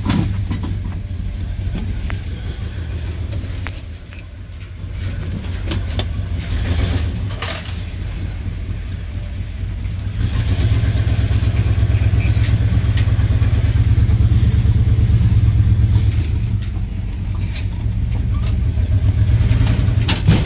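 1972 Chevy C10's original 402 big-block V8, long dormant, running as the truck is driven slowly, heard from inside the cab as a steady low pulsing exhaust note. It eases off briefly early on and gets louder about halfway through.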